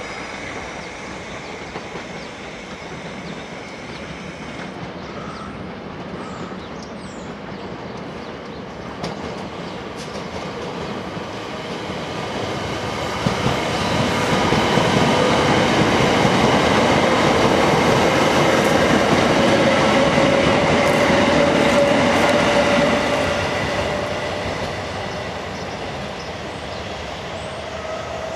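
Two coupled Class 378 Electrostar electric multiple units running through the station at speed: a rumble of wheels on rail that builds to a loud steady pass lasting several seconds, with clicks over rail joints and a steady whine, then fades as the train moves away.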